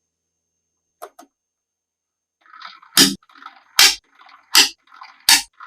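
Handcraft work sounds: four sharp clicks or snaps about three-quarters of a second apart, with faint rustling between them, after a brief quiet start with two faint ticks.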